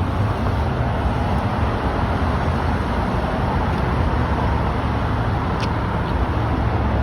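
Steady vehicle rumble and hiss, with a brief faint high chirp about five and a half seconds in.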